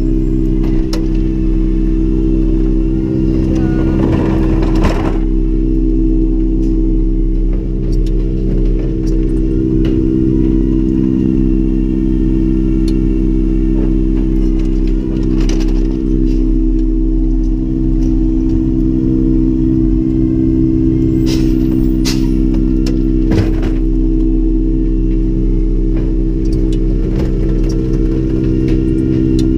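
A Freightliner M2 CNG garbage truck's engine running steadily at idle, heard from inside the cab, with occasional clunks and rattles from the sideloader's arm and bins. The longest clatter comes about four seconds in.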